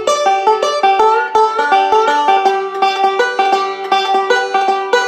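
Five-string banjo picked with fingerpicks in bluegrass three-finger rolls: a quick, even stream of ringing notes, with a couple of short upward slides into notes.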